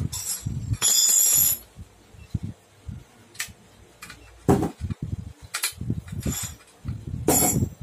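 Metal tools and parts of a child's balance bike clinking and knocking as the saddle is fitted and its clamp worked with a wrench. There is a sustained metallic scrape about a second long near the start, and sharp clinks about four and a half and seven seconds in.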